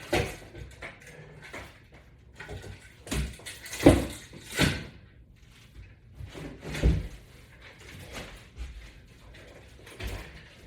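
Irregular knocks and thumps from a resistance-band workout rig during press repetitions, the loudest about four and seven seconds in.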